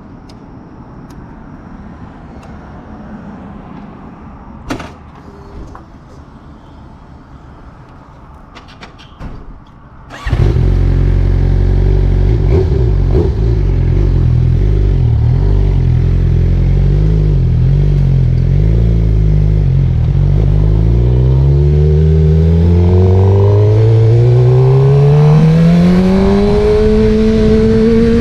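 Suzuki GSX-R600 inline-four with an M4 slip-on exhaust starting up suddenly about ten seconds in, after a few faint clicks. It runs steadily at low revs, then rises smoothly in pitch over about six seconds as the bike accelerates, levelling off near the end.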